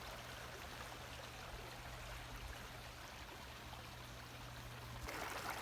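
Rain-fed desert creek running steadily, a faint even rush of flowing water that grows a little louder near the end.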